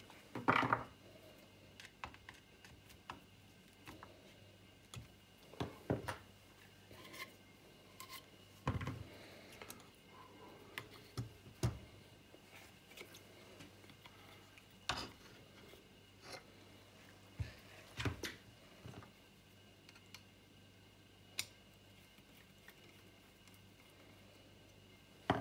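Irregular clicks, taps and knocks as a radiator and its plastic shroud are handled and refitted on a workbench, with small parts and a tool set down now and then. A faint steady hum runs underneath.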